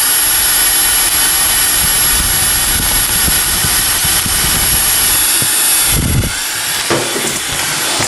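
Dyson Supersonic hair dryer blowing cool air through its styling concentrator nozzle: a loud, steady rush of air with a high motor whine. The airflow hits the microphone as low rumbling gusts in the middle, and the high rush falls off about six seconds in.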